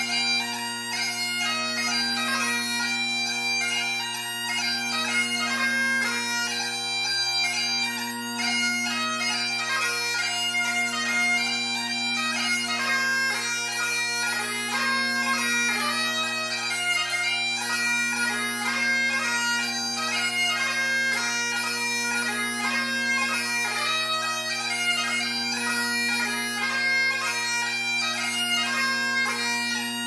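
Great Highland bagpipe played solo: the chanter carries a quick, continuous melody over the steady hum of the drones.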